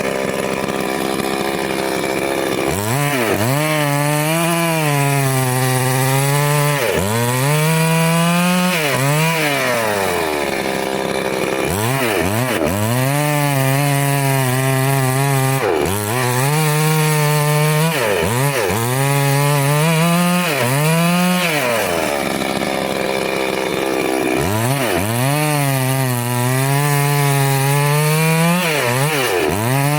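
Petrol chainsaw engine running at high revs while cutting wood, its pitch sagging and recovering as the chain bites. It eases off three times, near the start, about ten seconds in and about twenty-two seconds in, then revs up again.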